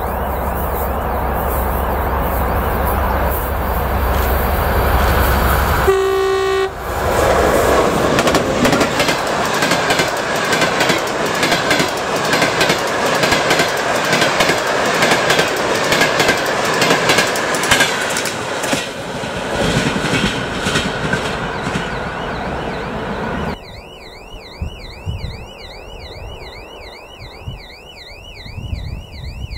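A TEP70 diesel passenger locomotive approaching with a deep, steady engine rumble, then one short horn blast about six seconds in as it comes level. The passenger carriages then rush past with a rapid clickety-clack of wheels over the rail joints. Near the end the sound drops away to a distant train with a faint high, repeating warble.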